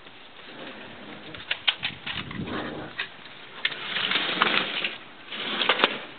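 Romanian Carpathian Shepherd puppies scuffling among potted plants: leaves and stems rustling in three short bursts, with claws clicking on the patio tiles.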